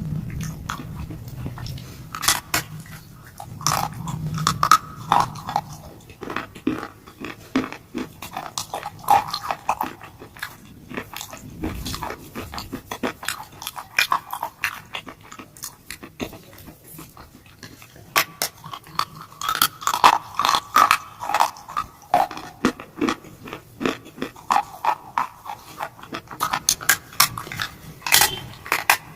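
Close-miked chewing of shalestone, a soft shale rock: a dense, irregular run of sharp, brittle crunches, easing off in a couple of quieter stretches.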